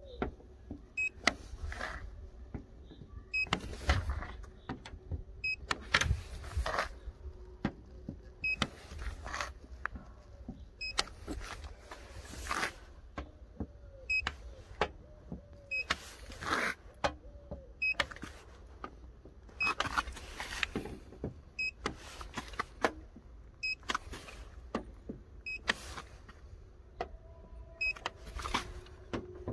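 Handheld paint thickness gauge being touched against a car's painted metal body panels again and again, giving a short click at each contact. Most contacts are followed by a brief high beep from the gauge as it takes a reading. Faint handling noise and a low steady hum lie underneath.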